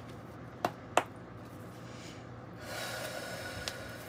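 Two sharp taps about a third of a second apart as a deck of tarot cards is handled on a wooden table. Past halfway comes a soft hiss of about a second and a half: a long breath drawn in through the nose.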